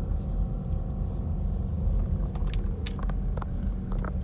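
Steady low rumble of a Jeep Grand Cherokee V8 driving slowly on a snowy mountain road, heard from inside the cabin. A few sharp light clicks come about halfway through and again near the end.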